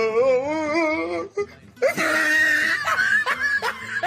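A high voice wavering in a wail, then a loud shrill cry about two seconds in, followed by a run of short bursts of laughter.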